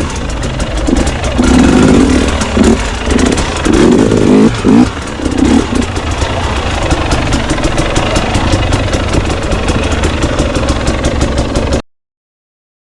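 Enduro dirt bike engine revving in short, uneven bursts as it is ridden through a rocky section, then running more steadily. The sound cuts off suddenly near the end.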